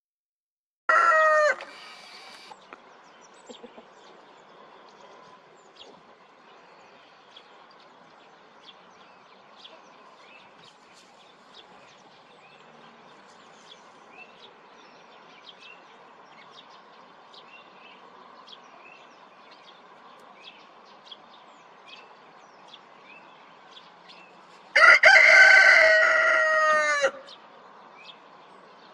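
Rooster crowing: a short, clipped crow about a second in, then a full crow of about two seconds near the end, its pitch falling away at the close.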